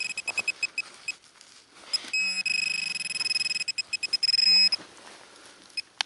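Handheld metal-detecting pinpointer searching a dug hole: a run of quick high beeps, then, about two seconds in, a steady high beep with a low buzz under it for about two and a half seconds, the sign that it is right on a metal target. Soft rustling of a gloved hand in sandy soil between the beeps.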